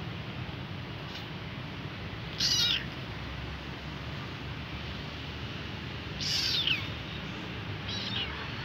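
A young kitten meowing three times, short high-pitched cries, the middle one longest and falling in pitch at its end: the cries of a hungry kitten calling for its mother.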